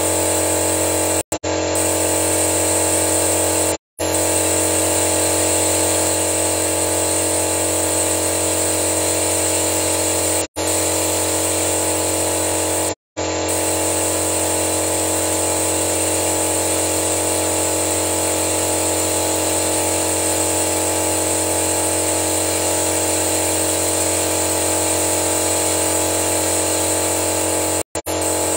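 A steady, unchanging machine hum with several even tones, from the engine-flush equipment at work. It is broken by five brief dead-silent gaps.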